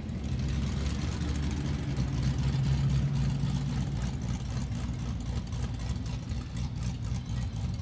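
Car engine running at low revs, a steady deep rumble.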